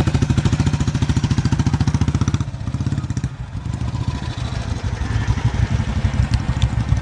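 Vehicle engine running under way with a rapid, even pulsing throb. It eases off briefly about three seconds in, then picks up again.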